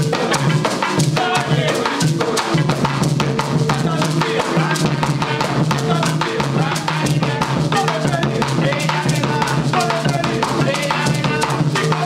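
Afro-Esmeraldeño marimba music: a marimba band playing over a steady, dense drum beat.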